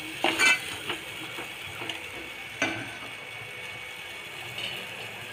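Steel spoon knocking and scraping against a metal pot as a masala paste is stirred, several sharp clicks in the first second and one more about halfway, over a steady faint sizzle of the masala frying in oil.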